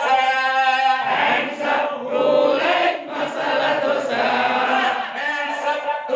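A group of men and women chanting a children's action rhyme together in unison.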